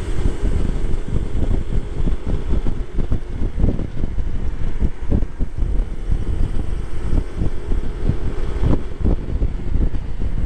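Wind buffeting the microphone on a moving Honda PCX125 scooter, a gusty low rumble, with the scooter's single-cylinder engine running steadily underneath at cruising speed.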